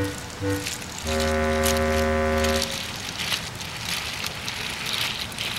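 Soundtrack score: a short low note, then one long held note with a rich, reedy tone for about a second and a half. Then a steady hissing with soft regular puffs, a steam engine puffing away.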